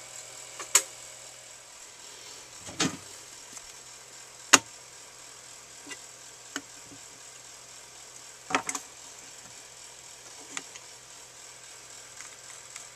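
Occasional sharp clicks and knocks, about five of them, the loudest a crisp knock near the middle, from a dial indicator on a magnetic base being handled and set against a metal lathe's carriage; a faint steady hum underneath.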